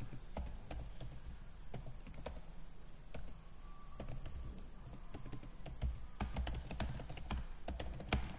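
Typing on a computer keyboard: irregular key clicks, coming thicker near the end.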